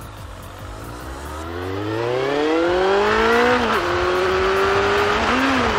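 Suzuki Bandit 1200S inline-four engine accelerating, its pitch rising steadily for about three seconds, then dropping sharply at an upshift and holding steady, with a short rise and fall near the end. Road and wind noise build as speed picks up.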